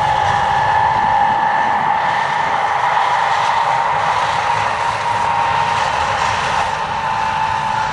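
Snowdon Mountain Railway rack train running steadily, a constant high whine over a low mechanical rumble.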